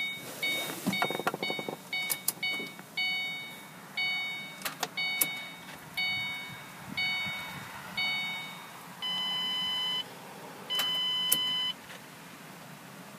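Ford Mustang's warning chime sounding over and over, about two a second at first and then one a second, each tone dying away, with a few sharp clicks among them. Near the end come two longer steady beeps at a different pitch.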